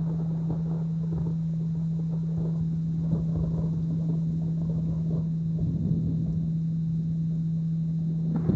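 A steady 165 Hz tone, the carrier of a delta binaural beat, held over a rain and thunderstorm recording with low rolling thunder rumble. Near the end a louder thunder rumble breaks in.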